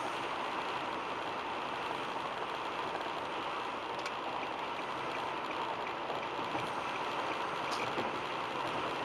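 Steady tyre and wind noise of a car cruising on a freeway, heard from inside the cabin.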